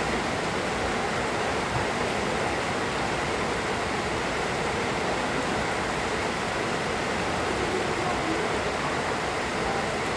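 Moderate rain falling, a steady even hiss.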